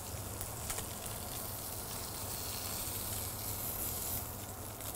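Oiled halibut fillets sizzling steadily in a hot grill pan and frying pan, a fine crackling hiss, with a couple of faint clicks under a second in.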